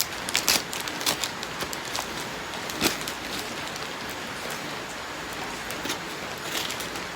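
Scissors cutting open a shipping package: irregular snips and clicks over a steady rustle of the packaging.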